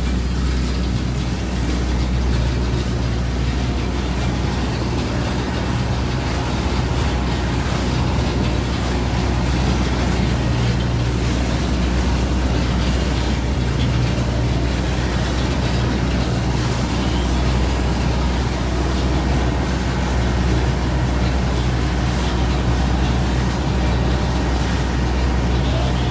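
Lobster boat's engine running steadily underway: a constant low drone, with an even rush of water and wind noise over it.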